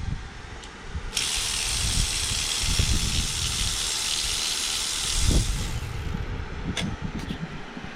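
A steady gas hiss under pressure, like a compressed-air blow gun or an aerosol spray, starts suddenly about a second in and cuts off after about four and a half seconds. Low knocks and thumps of work sound around it, with a few sharp clicks near the end.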